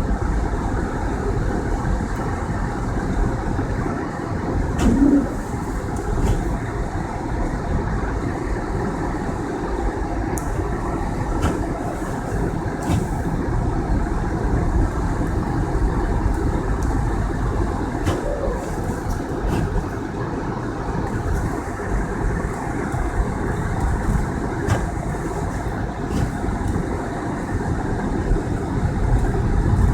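A car driving through snow: steady engine and road noise, with a few faint clicks here and there.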